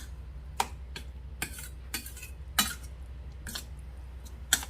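A utensil stirring seasoned minced pork in a bowl, clinking against the bowl about six times at uneven intervals.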